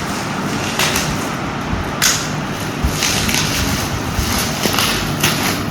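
Plastic packaging rustling and crinkling as a small cosmetics item is unwrapped, with a few sharper crackles.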